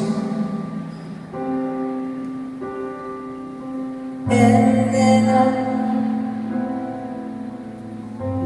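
Live band playing a slow ballad, led by sustained keyboard chords that change every second or so. About four seconds in, the band comes in louder and fuller.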